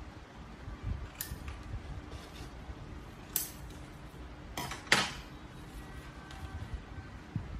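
Scissors snipping through craft paper, with a few crisp paper sounds; just under five seconds in, the metal scissors are put down on the table with a sharp clack, the loudest sound.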